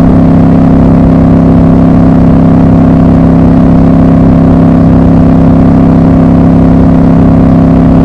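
Triumph Scrambler 1200 XC's 1200 cc parallel-twin engine and exhaust running loud and steady at an even cruising speed, the revs held constant.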